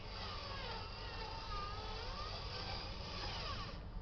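Small electric motor and gearbox of an RC model dump truck whining as it drives over dirt, the pitch rising and falling with the throttle. The noise eases off just before the end.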